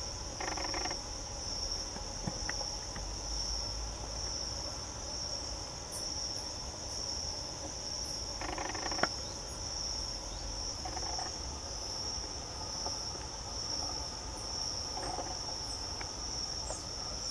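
Steady high-pitched insect chorus, pulsing slightly, with a few brief lower sounds and a sharp tick about nine seconds in.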